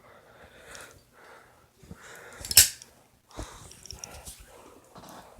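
Zippo lighter being handled for a flip trick: one sharp click about two and a half seconds in, with softer knocks and rustles around it.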